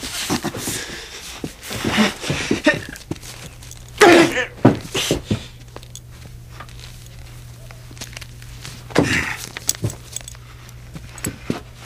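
A man being strangled in a chokehold: strained gasps, grunts and choked cries amid the scuffle of bodies and clothing, loudest about four to five seconds in and again about nine seconds in.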